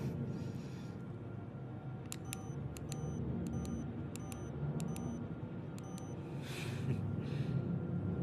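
Buttons of a push-button code lock being pressed one after another: a run of about a dozen short, sharp clicks with a faint pitched ring, coming in quick pairs, over a low, ominous music bed. A brief rushing noise follows near the end.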